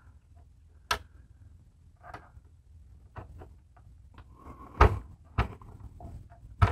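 Scattered light clicks and a few sharp metal knocks as the end of an RV awning gas spring is handled and fitted against the metal awning arm, the loudest about five seconds in.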